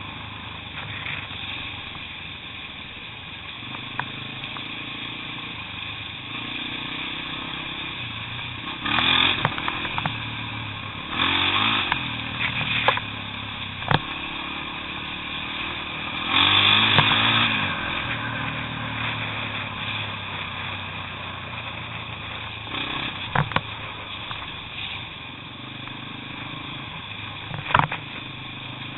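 Trail motorcycle engine running steadily while riding a rough lane, opened up into three louder revs about nine, eleven and seventeen seconds in. A few sharp knocks from the bike jolting over bumps come through, the last near the end.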